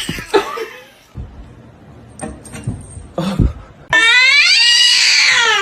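A few scattered knocks and clicks, then about four seconds in a cat's loud, drawn-out meow that rises and then falls in pitch.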